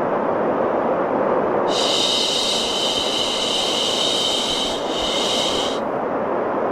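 A long shushing "shhh" starts about two seconds in and cuts off after about four seconds, laid over a steady, deep brown-noise hiss.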